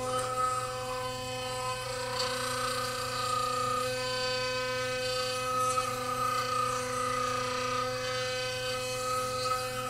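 Philips Sonicare DiamondClean sonic toothbrush running on its whitening setting with the head in the mouth against the teeth: a steady electric buzz.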